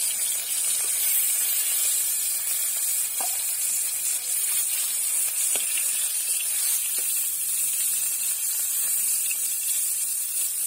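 Snakehead fish steaks sizzling as they fry in hot oil in a kadai: a steady, even hiss, with a few faint clicks of a metal spatula against the pan.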